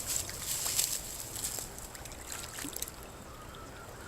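Water splashing in irregular bursts over the first few seconds as a hooked carp thrashes at the creek's edge while being pulled up, then settling quieter.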